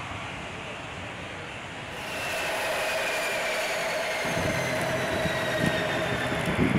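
Turboprop engines of a Fokker 50 airliner running on the ground with a steady rushing whine. About two seconds in the sound grows louder, and several whining tones then fall slowly in pitch as the engines spool down.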